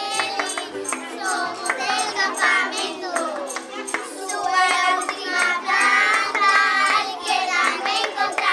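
A group of children singing a song together, accompanied by a strummed ukulele.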